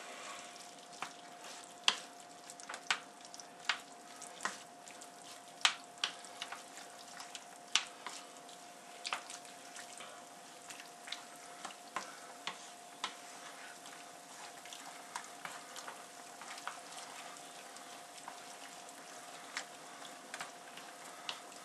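A utensil knocking and scraping irregularly against a frying pan as sauce is stirred, the knocks frequent at first and sparser after about halfway. Underneath is a faint steady hiss and a thin steady tone.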